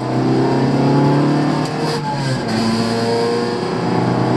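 A Honda Civic's 1.3-litre twin-carburettor four-cylinder engine pulling hard under throttle, heard from inside the cabin. The engine note climbs steadily, breaks briefly about two and a half seconds in, then climbs again.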